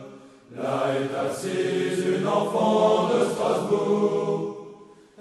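Choral music: voices singing slow, held chords. It dips away just after the start, swells back, and fades out near the end.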